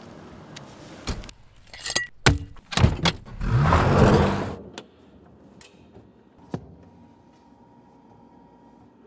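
A run of sharp clicks and knocks in the first few seconds, then a car's tyres spinning on a dirt and gravel road for about a second and a half as it pulls away hard, throwing up grit; this spin is the loudest sound. A couple of faint clicks follow.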